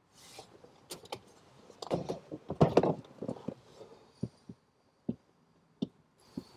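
A run of clicks, knocks and rustles, thickest about two to three seconds in, from people shifting and handling things inside a car.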